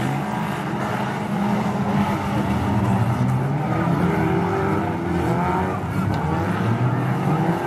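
A pack of super stock-car engines racing at once, several of them revving up and down over one another.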